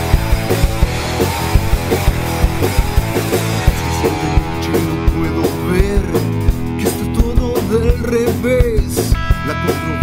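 Rock band playing live: a drum kit striking a steady beat under electric guitar, an instrumental stretch of the song with no singing.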